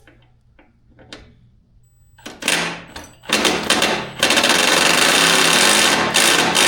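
Impact wrench hammering in bursts as it runs a bolt or nut: a short burst about two seconds in, a second brief one, then a longer run of about two seconds and another near the end. A few faint clicks of parts being handled come before it.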